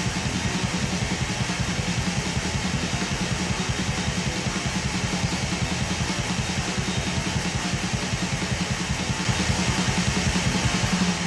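Black metal music: distorted electric guitar over fast, dense drumming, loud and even.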